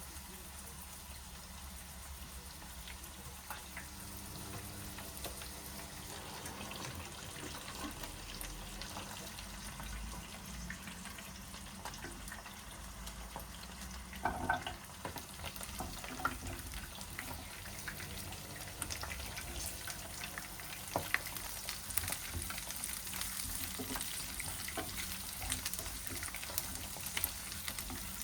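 Food sizzling and crackling as it fries in a pan, the sizzle growing stronger in the second half, with small clicks of a utensil and a knock about halfway through.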